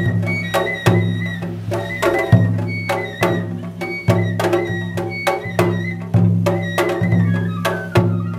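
Japanese festival drum music (matsuri-bayashi): a deep drum struck in a steady rhythm about once every three-quarters of a second, with quicker, sharper strikes between the beats.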